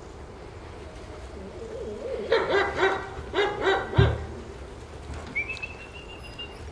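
Giant Schnauzer puppies yapping in play: two quick runs of about three high barks each, around the middle, followed by a sharp thump.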